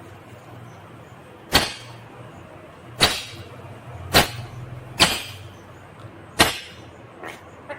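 Indian ringneck parrot giving short, sharp, harsh calls, five of them at uneven gaps of about one to one and a half seconds, over a steady low hum.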